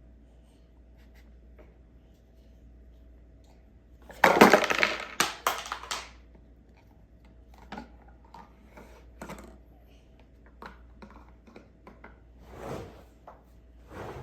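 Hard plastic toy pieces clattering and rattling loudly for about two seconds, starting about four seconds in, followed by scattered light taps and clicks.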